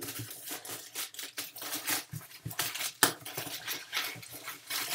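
Cardboard shipping box being handled and its flaps opened: cardboard rustling and scraping with irregular small knocks and clicks, the sharpest about three seconds in.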